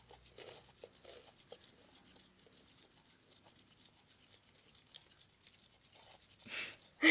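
Homemade slime of glue and gel laundry detergent being stirred in a plastic tub, giving faint, quick sticky clicks and scratches.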